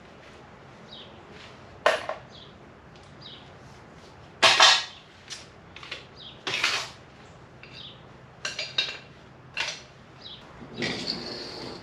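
Metal tools and steel parts clanking and clinking while a wheel is taken off, in separate sharp strikes every second or two; the loudest comes about four and a half seconds in.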